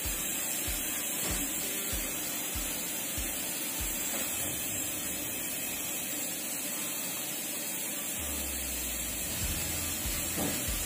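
Background music with a steady bass beat, a bit under two thumps a second. The beat drops out midway and a low held bass note comes in near the end.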